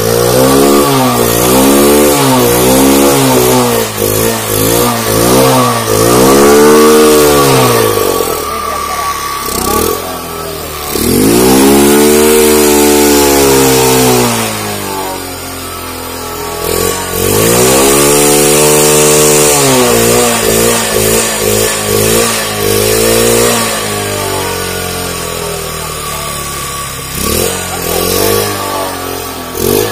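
Bajaj Discover 100's single-cylinder four-stroke engine running on its first start after four to five years laid up, revved repeatedly by hand: quick blips, then several longer revs that rise and fall over about three seconds each.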